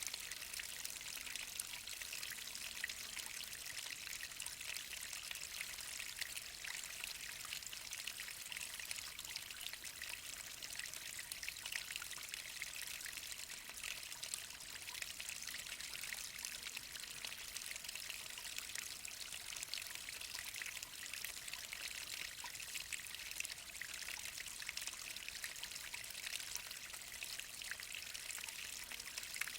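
Water of a mountain waterfall about 20 m high falling and splashing steadily: a constant, even splashing noise, mostly high-pitched, with fine crackle of drops.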